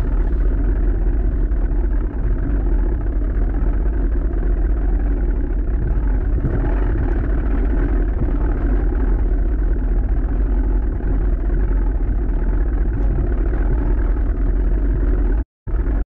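Boat motor running steadily, a loud continuous low rumble; the sound cuts out for a split second near the end.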